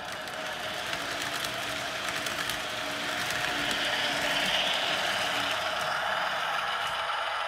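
HO scale model train running on its track: a steady whirr of the locomotive's motor and gearing with light ticks of wheels over the rails, growing a little louder about halfway through.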